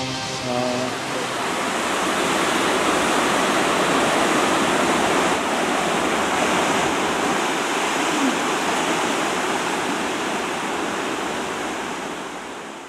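Churning white water of a cruise ship's wake, a steady rushing that fades out near the end.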